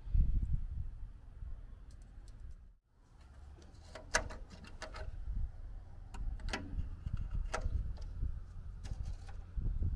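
Hands working in a stopped tractor's engine bay: a few light clicks and knocks of parts being handled, over a low rumble on the microphone. No engine is running.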